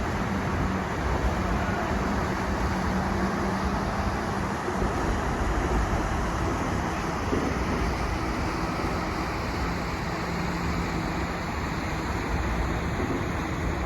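Steady outdoor rumble with a faint low engine hum.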